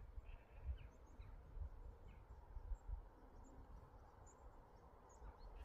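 Faint, scattered chirps of distant small birds over a low wind rumble on the microphone.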